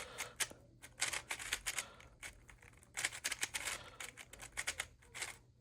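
GAN Megaminx being turned quickly by hand, its plastic faces clicking and clacking in several rapid runs of turns with short pauses between.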